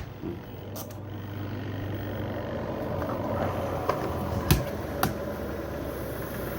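Twin-tub washing machine spin dryer running after its motor repair: a steady low hum with a few light clicks. It runs smoothly, without knocking.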